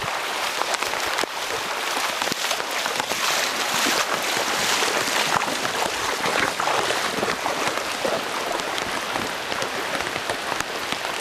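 Heavy rain falling on a shallow river, a steady hiss dotted with many small sharp drop ticks, over the rush of the current.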